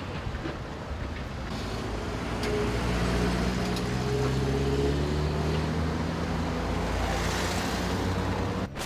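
City road traffic passing a roadworks site: a vehicle engine comes up about two and a half seconds in and runs with its pitch sliding slightly down, and near the end a car passes close by with a rush of tyre noise.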